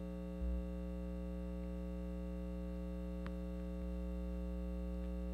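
Steady electrical mains hum with a buzzy stack of overtones. A soft low thump comes about half a second in, and a faint click a little past three seconds.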